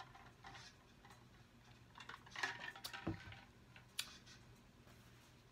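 Quiet sipping through a straw and soft eating mouth sounds, with a single sharp click about four seconds in.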